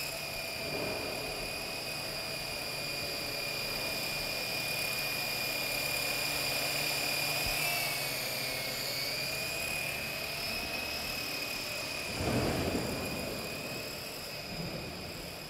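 ArtTech UFO four-channel coaxial RC helicopter in flight: a steady high-pitched whine from its battery-powered rotors. The pitch wavers briefly about eight seconds in, and a louder rush comes about twelve seconds in.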